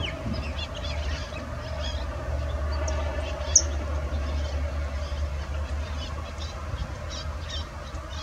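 Many short high bird chirps and calls scattered over a steady low rumble and hum, with one sharp high note about three and a half seconds in.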